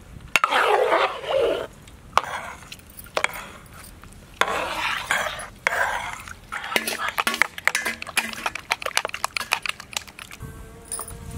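Metal ladle stirring a big batch of raw egg and mushroom omelette batter in a large aluminium pot: wet swishing of the mixture, then, from a little past the middle, a quick run of clinks and scrapes of metal against the pot.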